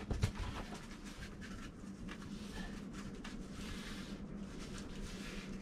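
Faint scratching and crackling of Velcro straps being handled and pressed closed, with scattered small ticks.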